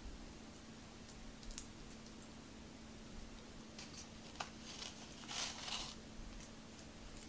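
Faint crackles, clicks and wet squishes of a boiled head-on shrimp being peeled by hand and eaten, loudest in a short cluster a little past the middle, over a low steady hum.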